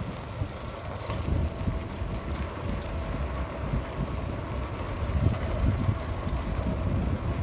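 Wind buffeting the microphone on a moving GoTrax GXL electric scooter, over road and tyre rumble, with a faint steady whine.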